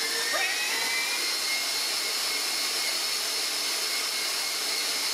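Electric stand mixer running, its whisk beating a thick pie filling of sweetened condensed milk and egg yolks: a steady motor whine that rises a little in pitch in the first second, then holds.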